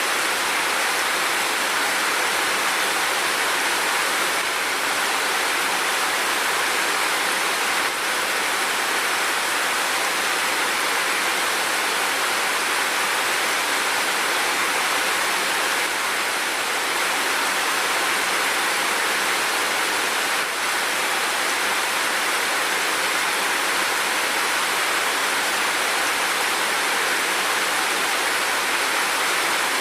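Steady, even rain.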